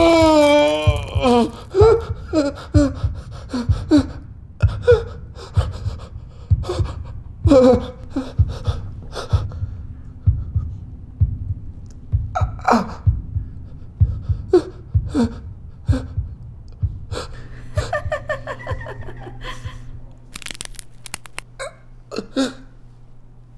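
A man sobbing and gasping in pain: short, broken whimpering cries that fall in pitch, with sharp catches of breath between them, thinning out near the end. A low pulsing beat runs underneath for most of it, and a steady low hum comes in later.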